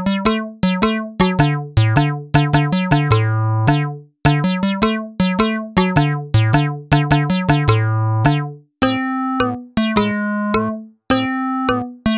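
Background music: a melody of short notes that start sharply and die away over low bass notes, with brief breaks about four and nine seconds in.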